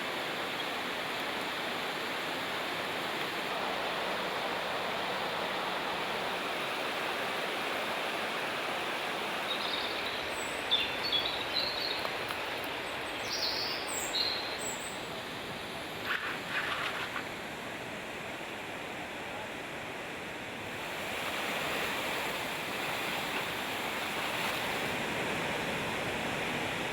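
Floodwater rushing past in a steady, even roar. A few short high chirps come through about ten to fifteen seconds in.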